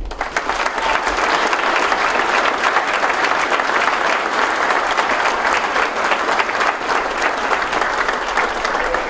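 Audience applauding steadily: many people clapping in a large hall.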